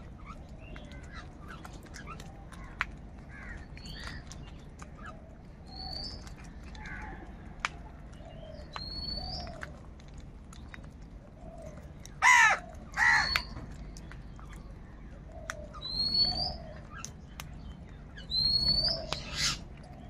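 House crows cawing on and off, the loudest a pair of harsh caws about twelve seconds in and another pair near the end. Short, high rising whistled notes from another bird come several times between them, with scattered sharp ticks.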